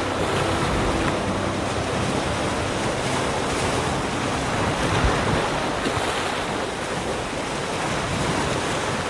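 Ocean surf washing onto a beach: a steady rushing of waves.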